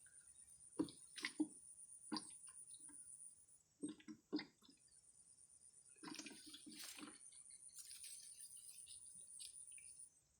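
Faint, scattered splashes and knocks of hands or a net working in shallow water while catching betta fish. Over them runs a steady high trill that breaks off a little after three seconds in, resumes about a second later and stops near the end.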